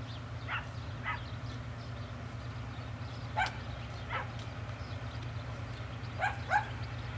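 A dog barking in short pairs, three pairs about three seconds apart, over the steady low drone of a distant 3TE10M freight locomotive's two-stroke diesel engines working.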